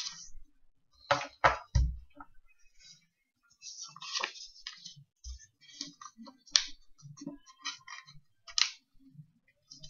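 A sheet of A4 paper being handled and folded on a wooden table: a few sharp knocks about a second in, then scattered rustles and crinkles as the paper is lifted, turned and creased.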